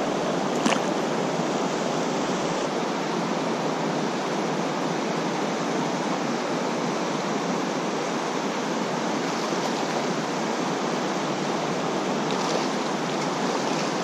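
Fast creek water rushing steadily over riffles and rapids, heard close up while wading. A single brief click about a second in.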